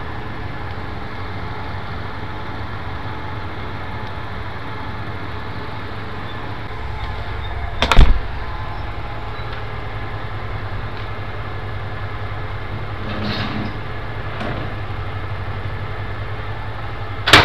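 Steady low drone of a boom truck's diesel engine running to power its knuckle-boom crane. A sharp knock comes about eight seconds in and another near the end.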